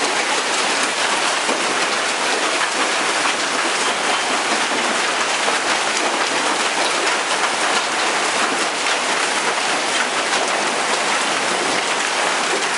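Heavy hail storm with hail and rain pelting down steadily, a dense hiss full of fine ticks from hailstones striking roofs, cars and pavement.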